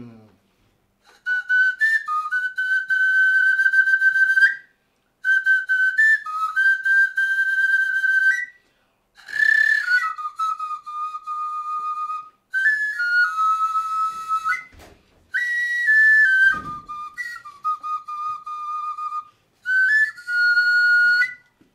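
Background score: a slow solo melody on a high whistle-like wind instrument, played in about seven separate phrases of long held notes joined by quick ornamental turns, with brief silences between phrases.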